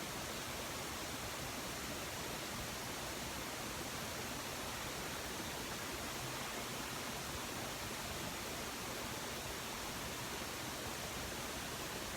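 Steady, even hiss with no other sound in it: the background noise of the recording.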